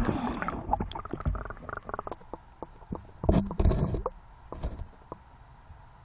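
Underwater camera being moved in shallow water: muffled sloshing and bubbling heard through the housing, with irregular knocks and clicks. These come in a cluster over the first second and a half, again after about three seconds, and as scattered ticks near the end.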